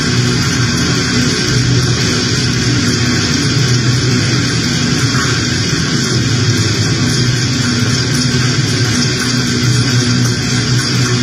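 Loud, steady noise music with a guitar-like drone: a dense, unbroken wash of sound over a low hum.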